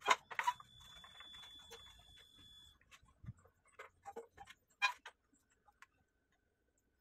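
Scattered clicks and taps of hands handling and pressing on a Samsung soundbar's plastic back panel, the loudest near the start and a cluster about four to five seconds in. A faint thin high tone holds for about two seconds near the start.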